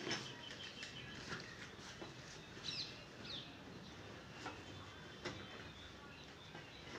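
Quiet background ambience with two short, high bird chirps a little over halfway through, and a few faint clicks.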